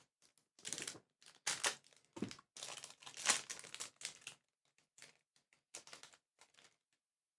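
Irregular crinkling and rustling of a foil booster-pack wrapper and trading cards being handled, dying away near the end.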